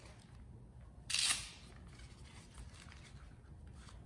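Handling of fabric blood flow restriction cuffs and their plastic packaging: one short, sharp rustle about a second in, then faint light rustles and scrapes.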